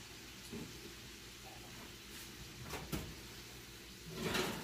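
Oven door being opened: a few light clicks and knocks, then a short scraping rush near the end as a pan is slid out along the oven rack.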